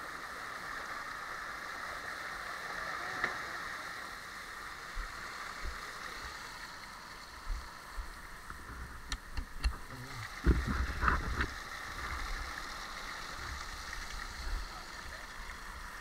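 Water rushing steadily down a fiberglass water-slide chute. A few low thumps come around the middle.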